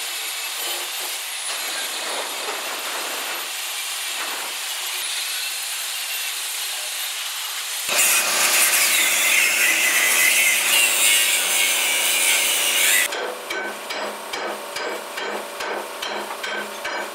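Steady hiss of a cutting torch on the steel teeth of an excavator bucket, then, about eight seconds in, a louder angle grinder grinding steel for about five seconds. After that comes a run of sharp metal strikes, two to three a second, from a long-handled hammer knocking the cut bar off the teeth.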